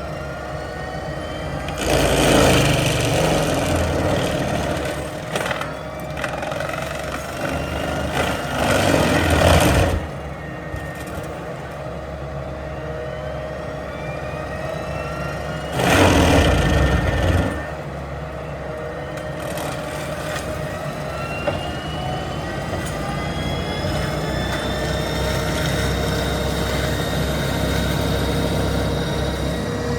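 Cat 287B Supertrack compact track loader's diesel engine running, with slowly rising whines and three louder surges of a couple of seconds each as the machine is worked.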